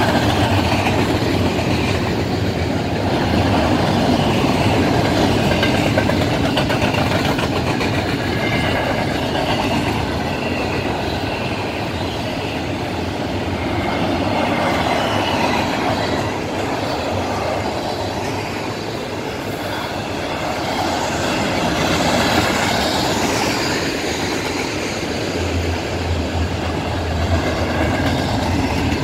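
Double-stack intermodal well cars rolling past on welded rail: a steady rumble and rattle of wheels and couplings, with faint high wheel squeal at times. Near the end a low steady drone joins in as the mid-train EMD diesel locomotives draw near.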